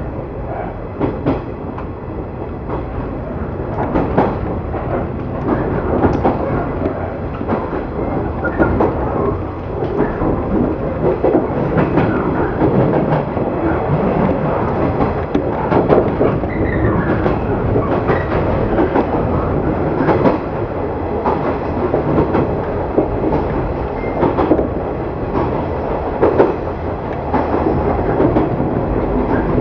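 Ride noise inside a JR 115 series electric train on the move: a steady rumble of wheels on rail, with repeated clicks as the wheels cross rail joints. It grows louder over the first several seconds, then holds steady.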